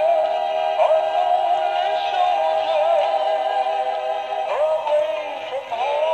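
Animated plush Scottie dog toy crooning a recorded song through its built-in speaker: long held notes with slides between them.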